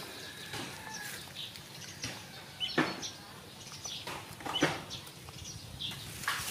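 Bird calls: three short, louder calls, evenly spaced, over faint scattered chirping.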